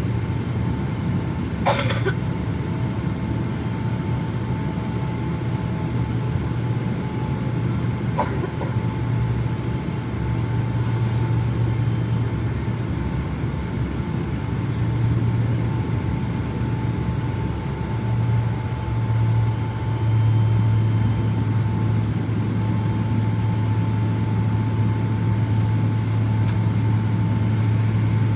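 Cabin noise inside a Boeing 777-300ER: its GE90-115B engines give a steady low hum with a faint steady whine over it, growing a little louder about two-thirds of the way through. A sharp click comes about two seconds in, and a fainter one about eight seconds in.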